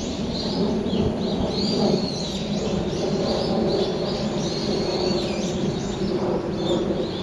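A dense chorus of many wild birds calling at once, overlapping chirps and whistles, over a steady low background rumble.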